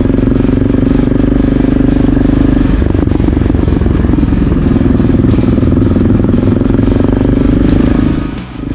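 Motorcycle engine running steadily and loudly close by, a fast even beat of firing pulses.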